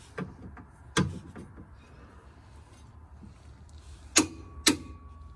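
Click-type torque wrench on a suspension bracket bolt: one sharp click about a second in, then two more clicks about half a second apart near the end as the wrench lets go at its 120 Nm setting.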